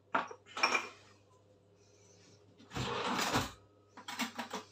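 Kitchen handling noises at the counter: two light clicks, a brief rough scraping rustle in the middle, then a few more quick clicks as spice jars and a bowl of egg mixture are handled, over a faint steady hum.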